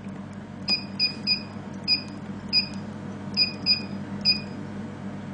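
Touchscreen of an Nd:YAG laser machine beeping as its arrow keys are pressed to step the energy and frequency settings: about eight short, high, identical beeps at uneven intervals, over a steady low hum.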